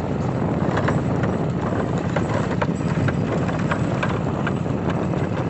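Hoofbeats of a running horse, a quick regular clip-clop of several strikes a second, over a steady rushing noise.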